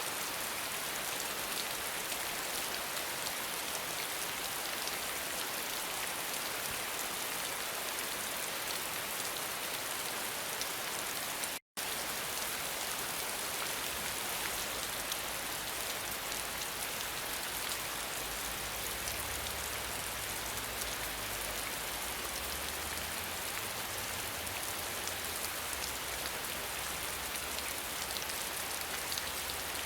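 Steady, dense rain falling, with a brief cut to silence about twelve seconds in. After the cut a faint low rumble runs beneath the rain.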